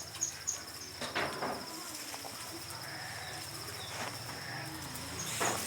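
Free-range indigenous chickens calling, over a steady, pulsing, high-pitched insect trill. A few short high chirps come near the start and again near the end.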